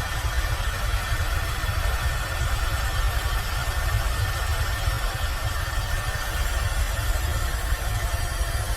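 Airbus H130 (EcoStar) helicopter running steadily: deep, even rotor and transmission drone with a thin, constant high turbine whine from its single Arriel turboshaft engine.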